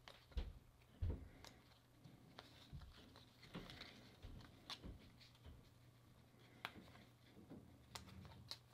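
Faint, irregular soft clicks and rustles of a stack of 2021 Topps baseball cards being flipped through, cards slid one at a time from one hand's pile to the other, over a low steady hum.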